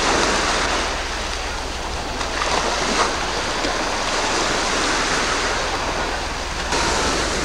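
Waves washing on a pebble beach: a steady rushing hiss of surf that swells slightly near the end.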